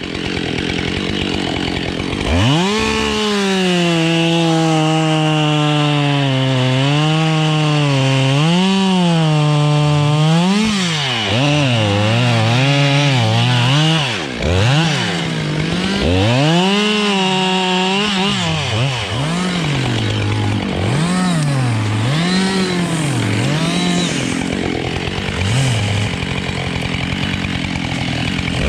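Husqvarna 572 XPG two-stroke chainsaw cutting beech, its engine note dropping as it pulls under load in the cut and rising again when it revs free, over and over. The saw is new and not yet run in, which the owner says makes it sound a bit different.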